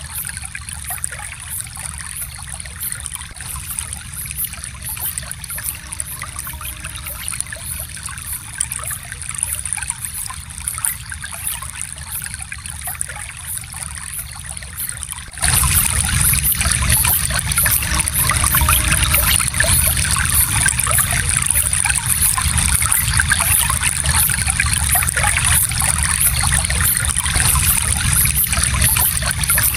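Small stream flowing steadily. About halfway through it suddenly becomes louder and stays that way.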